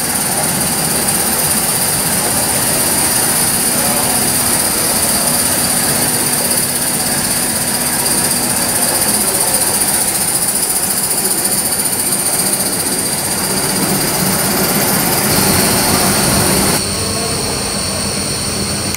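Gauge 1 live-steam model of an LSWR Adams Radial tank locomotive running on its track: a steady hissing rush with a thin, high, steady tone over it. The sound changes abruptly near the end.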